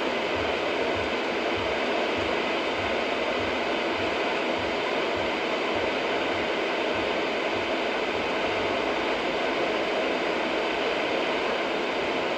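Steady road and tyre noise from inside a car cruising on a wet expressway, with a soft low pulsing about twice a second underneath.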